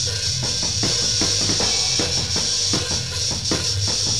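Instrumental passage of a band's song without vocals: a drum kit plays a steady beat of bass drum and snare at about four hits a second over a low bass line.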